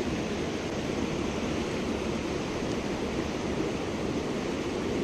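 Steady rush of a mountain stream's flowing water, an even unbroken noise.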